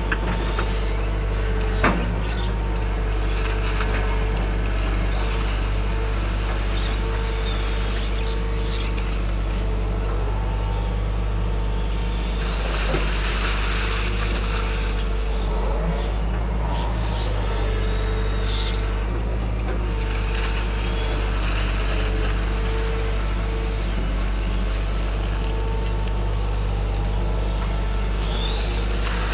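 Hydraulic excavator's diesel engine running steadily, with a whine that comes and goes several times as the hydraulics are worked.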